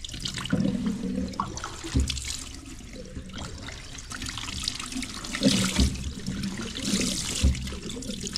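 Tap water running into a sink and splashing over pickled mustard greens as they are rinsed and squeezed by hand, with the wet splatter swelling and easing. A few dull bumps sound along the way.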